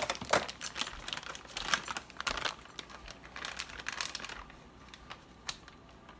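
Plastic bag of shredded cheese crinkling as it is handled and shaken out over a mixing bowl: irregular rustles and clicks that die down after about four seconds.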